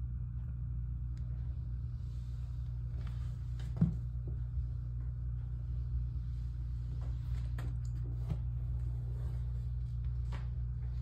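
Steady low hum, with scattered light taps and clicks and one louder knock about four seconds in.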